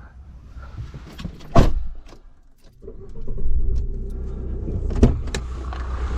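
A sharp clunk about one and a half seconds in, then the RV's engine starts about three seconds in and idles steadily, with another click near the end.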